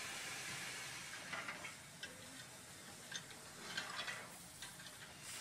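Faint steady hiss with a few scattered, irregular ticks and clicks.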